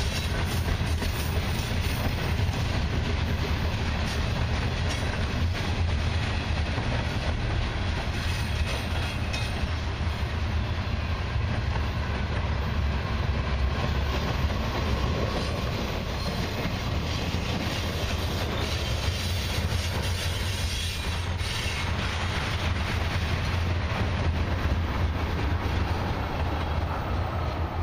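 Freight cars of a long mixed freight train rolling past, with a steady rumble and clatter of steel wheels on the rails from the covered hoppers and tank cars at the tail of the train.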